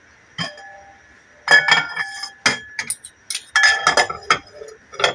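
Stainless steel cookware clinking: a sharp click about half a second in, then clusters of ringing metal clinks near the middle and toward the end, as the pot lid and utensils are handled.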